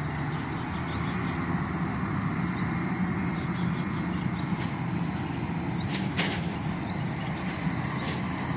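Steady low rumble of a jet airliner's engines. Over it a bird repeats a short rising chirp every second or so, and there is one brief burst of noise about six seconds in.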